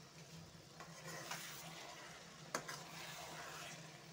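Metal spoon stirring and scraping through wet, simmering potato and spring-onion curry in a metal kadhai, over a faint sizzle, with one sharp clink of the spoon against the pan about two and a half seconds in.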